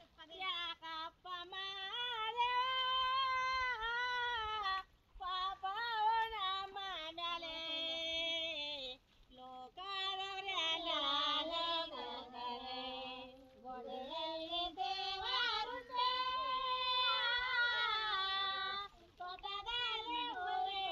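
A woman singing a folk song unaccompanied, a rice-transplanting field song, in long wavering melodic phrases broken by short pauses for breath.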